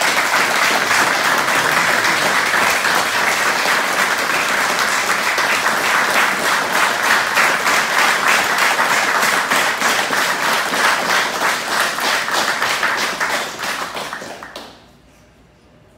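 Group applause, many hands clapping at once, starting suddenly and dying away near the end.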